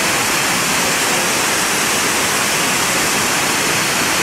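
Water of a rocky waterfall cascade rushing over boulders, a loud, steady, even hiss.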